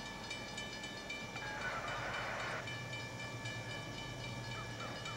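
Four GE B36-7 diesel locomotives working hard as they approach, their turbocharged engines giving a steady high howl over a low rumble. A short rush of noise breaks in about a second and a half in.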